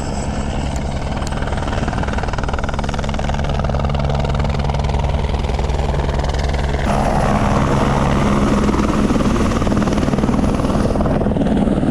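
A steady engine drone with a fast, chopping beat, growing louder about seven seconds in.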